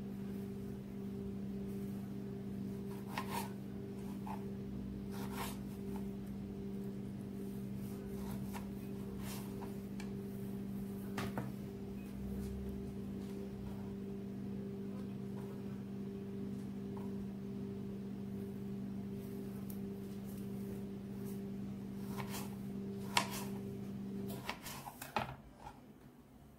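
A steady low mechanical hum that cuts off suddenly about two seconds before the end, with a few light taps and clicks of toppings being handled on a plastic cutting board.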